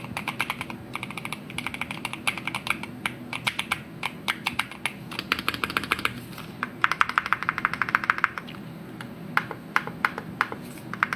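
Typing on a Keychron Q6 HE full-size keyboard with magnetic (Hall-effect) switches: a quick, steady stream of keystrokes, with a faster flurry about seven seconds in.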